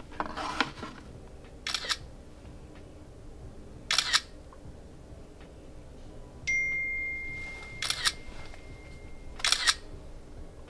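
Camera-shutter clicks, five of them a second or two apart, as a phone app takes images of diamonds inside a diamond tester to screen them for lab-grown (CVD) stones. A steady high tone sounds for about three seconds past the middle.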